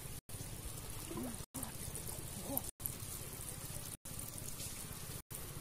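Pond water sloshing and trickling around a man wading chest-deep, with a faint voice now and then. The sound is cut by brief silent gaps about every second and a quarter.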